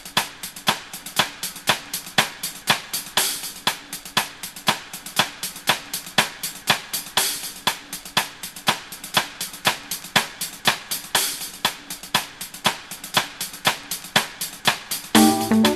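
Background music: a drum-kit beat of evenly spaced snare and hi-hat strokes, about four a second. A pitched instrument comes in just before the end.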